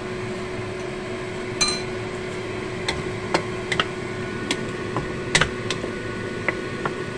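Wooden spatula clicking and scraping against a non-stick wok while stir-frying shredded white radish, in irregular strokes about a dozen times, over a steady background hum.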